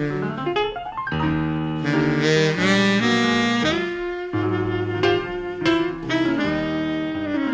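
Jazz ballad: a saxophone plays the melody in long held notes over piano and double bass.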